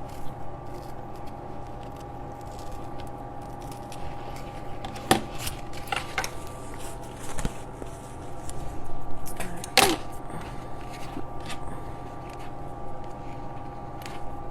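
Scattered light clicks and rustles of hands handling a fabric pouch and trimming loose threads, over a steady electrical hum.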